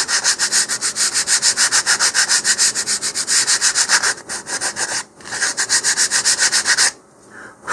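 100-grit sandpaper on a hand sanding block, rubbed in quick, even back-and-forth strokes along the edge of a basswood fin, rounding its leading edge into a curve. The strokes break off briefly about four and five seconds in and stop about seven seconds in.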